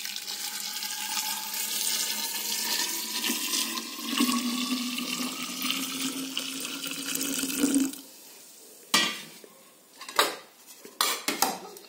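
Water poured in a steady stream from a pot into a large glass jar, its pitch rising slowly as the jar fills. The pouring stops about eight seconds in, followed by a few sharp knocks and clinks.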